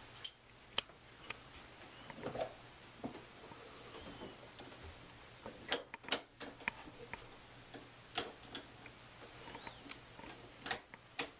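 Scattered light metallic clicks and taps of Mosin-Nagant bolt parts being handled as the firing pin assembly is worked into line during reassembly, with a few quick clusters of clicks.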